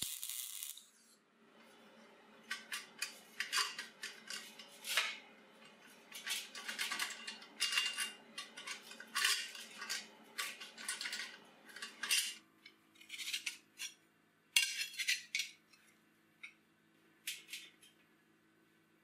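A brief crackle of MIG welding in the first second, then steel parts clinking, clanking and scraping against a slatted steel welding table as a welded tube frame and a steel plate are handled. The metal knocks come in irregular clusters and thin out near the end.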